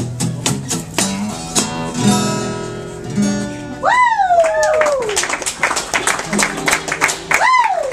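Acoustic guitar strummed hard in a steady rhythm, with a chord left ringing about two seconds in. About four seconds in, a voice gives two whoops that rise and fall in pitch, and another near the end.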